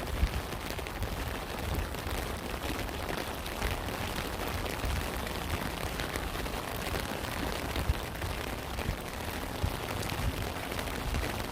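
Steady rain with many individual drops ticking close by and irregular dull low thuds from heavier drops striking a nearby surface.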